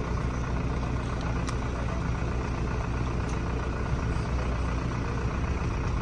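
Steady low mechanical hum, with two faint clicks about a second and a half and three seconds in.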